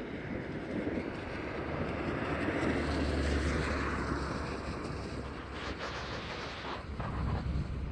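Stormy wind blowing over the microphone, with a low rumble that swells in the middle and fades.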